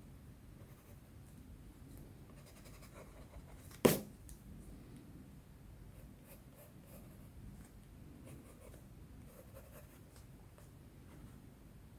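Colored pencil strokes scratching faintly on sketchbook paper, with a single sharp knock about four seconds in.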